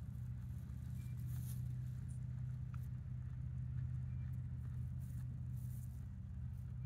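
Steady low hum of an idling engine, unchanging in pitch, with a few faint, brief crackles over it.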